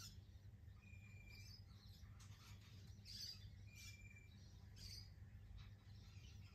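Near silence: a steady low hum, with faint bird chirps and a short high whistle repeated about every three seconds.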